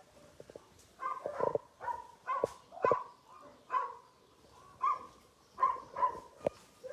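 A dog barking repeatedly: about ten short barks at irregular intervals.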